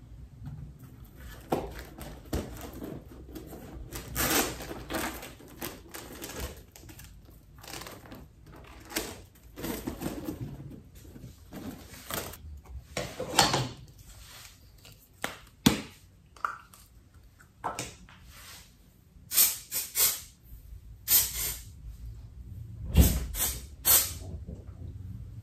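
Irregular clicks, knocks and light thuds, spaced unevenly with short clusters, like small objects being handled and set down.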